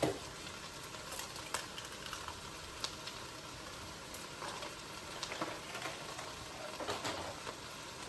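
Low, steady sizzle of food frying in a pan, with a few light, scattered clicks of a utensil.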